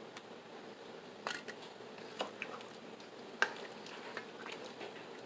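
A few light, separate clicks and taps of cookware at a cooking pot, over a faint steady hum.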